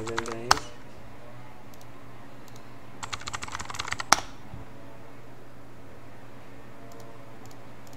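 Typing on a computer keyboard. A short run of keystrokes ends in one louder key press about half a second in. About three seconds in comes a quicker run of roughly a dozen keystrokes, ending in another sharp press just after four seconds.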